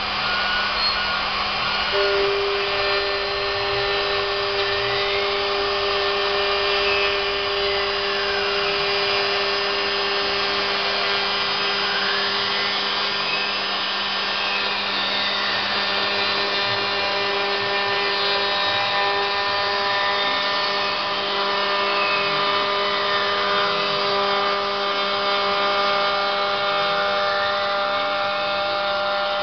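Home-built CNC router milling PVC: the spindle motor runs with a steady hum while the stepper motors whine in rising and falling glides as the axes speed up and slow down along the toolpath. A further steady tone joins about two seconds in.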